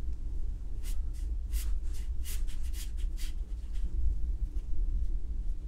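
A paintbrush making a quick run of about a dozen short strokes on watercolour paper, laying in darks, over a steady low hum.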